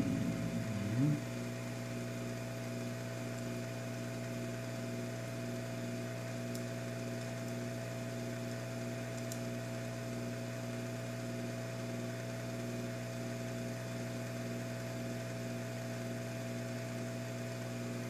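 Steady low electrical hum, even and unchanging.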